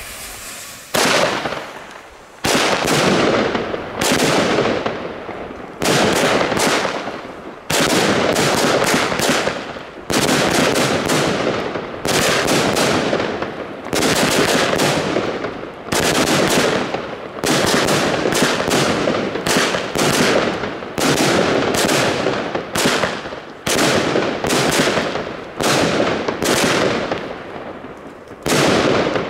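Three Blackboxx "Schwarze Witwe" (Black Widow) firework batteries chained together by fuse, firing. A faint fuse hiss for about the first second, then shot after shot, more than a dozen in all, roughly one every one to two seconds, each sharp report trailing off before the next.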